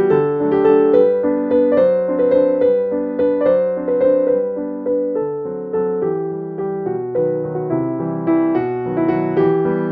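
Background piano music: a steady run of struck notes, each fading away after it sounds.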